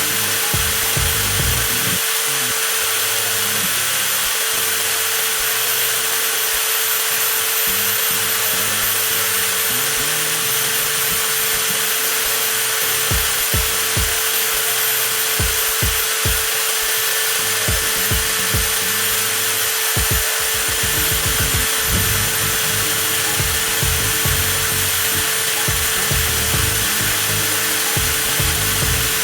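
Cordless angle grinder motor running steadily at constant speed, a continuous whine with an unchanging pitch, over background music.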